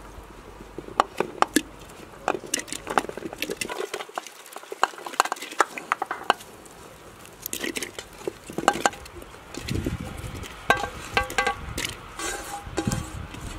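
Chunks of onion, carrot and potato being pushed off an aluminium tray and dropping into a steaming pot, a rapid run of knocks, clicks and plops. A little after ten seconds in, the metal tray clinks and rings against the pot's rim.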